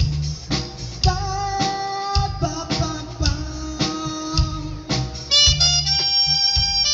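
Live rock band playing: drums keep a steady beat under guitar while a wind instrument carries a held, gliding lead melody that turns brighter and fuller about five seconds in.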